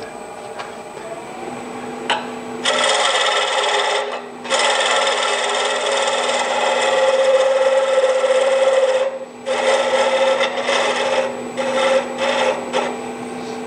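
Wood lathe spinning a wooden spindle while a turning tool cuts a tenon on its end: a scraping, hissing cut in stretches. The first cut starts about three seconds in and a long one runs to about nine seconds, followed by several short touches near the end. The lathe's steady hum runs underneath.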